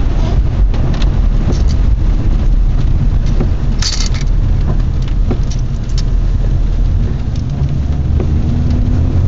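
Road noise inside a moving car's cabin: a steady low rumble of engine and tyres. A short, sharp hissing noise comes about four seconds in, with a few light clicks.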